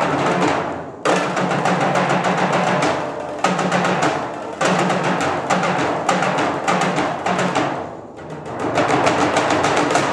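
Percussion quartet of bongos, timbales, concert toms, bass drum and timpani playing dense, rapid drumming with ringing low timpani notes underneath. The playing drops back briefly several times and surges again.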